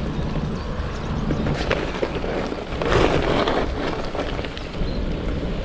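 Wind rushing over the microphone with road rumble while riding a bicycle, swelling louder about three seconds in.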